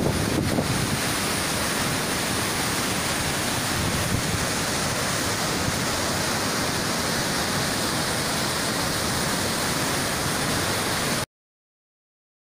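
Floodwater rushing through a waterfall and gorge, a steady heavy rush of water with a few brief knocks at the start, cutting off suddenly about eleven seconds in.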